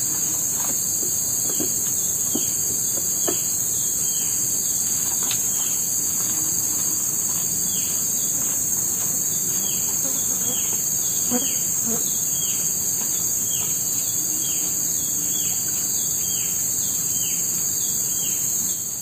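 A steady, high-pitched chorus of forest insects, with a bird repeating short falling notes about twice a second through much of it.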